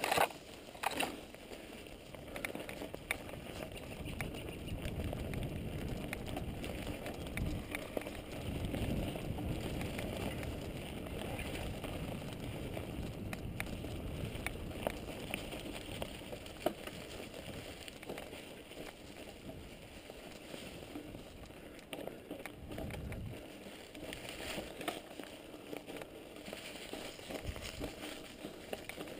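Mountain bike ridden fast along a dirt and grass trail: tyres rolling and crackling over the ground, the bike rattling with scattered clicks over bumps, and uneven wind rumble on the action camera's microphone.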